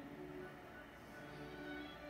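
Quiet background music of slow, held notes that change one after another.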